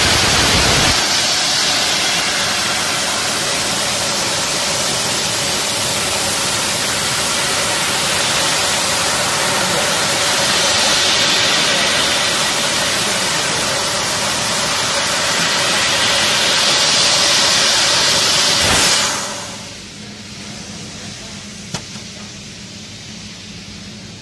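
Fiber laser cutter cutting 3 mm aluminium sheet with nitrogen assist gas: a loud, steady hiss of high-pressure gas jetting from the cutting head. The hiss stops about nineteen seconds in, leaving a faint steady hum and a single click.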